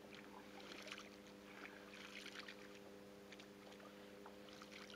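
Faint water lapping and splashing against the side of an inflatable boat, over a steady low hum.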